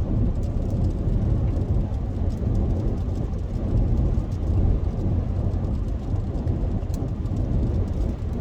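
Steady low road and engine rumble inside a moving car's cabin, with a few faint scattered ticks.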